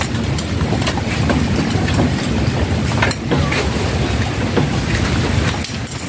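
Wind rumbling on the microphone in light rain, with irregular sharp taps of raindrops.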